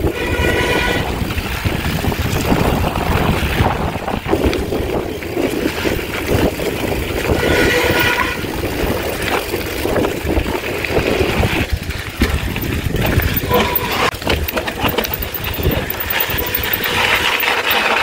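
Mountain bike descending a dirt trail: wind buffeting the camera's microphone over the rattle and knocking of the tyres and frame on rough ground. Two short squeals, about half a second each, come near the start and about eight seconds in.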